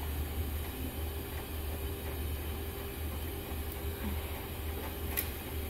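Steady low room hum with a faint steady tone above it, and one sharp click near the end.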